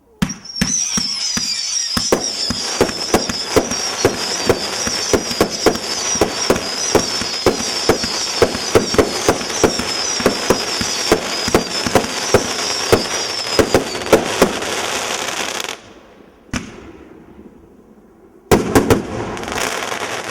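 Fireworks going off in a rapid volley of bangs and crackles, with a wavering high whistle over them, for about fifteen seconds before stopping suddenly. After a single pop and a short pause, another brief burst of bangs comes near the end.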